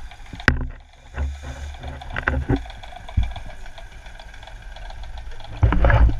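Muffled underwater sound: a steady low rumble broken by several short knocks and swishes of water as snorkelers move and kick close by, loudest near the end.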